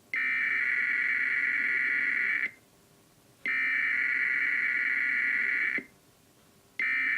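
Emergency Alert System SAME header data tones: the high, buzzy digital warble of the header code sent three times, each burst about two and a half seconds long, with about a second of silence between them. The third burst begins near the end.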